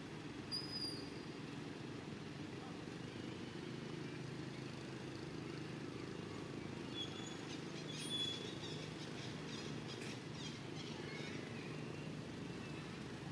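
Outdoor ambience: a steady low rumble with a few short, high chirps, once about half a second in and again around seven to eight seconds in.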